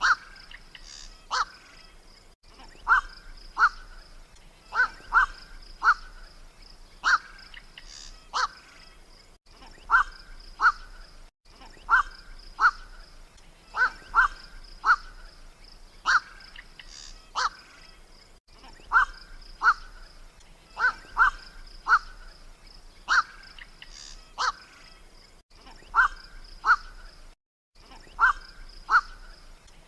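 Night heron (koak) lure recording: short, harsh single 'kwak' calls, often in quick pairs, repeating every second or two over a steady high tone. The loop has a few abrupt brief dropouts between segments.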